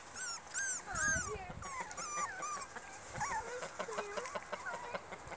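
Puppies whimpering and yipping: a quick string of short, high-pitched whines that rise and fall, thinning out near the end.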